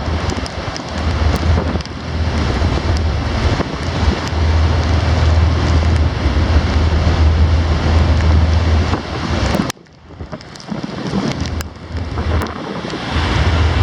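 Strong wind buffeting the microphone aboard a ferry in storm swells: a steady rushing with gusty low rumbles that come and go. It drops away suddenly about ten seconds in, then builds back.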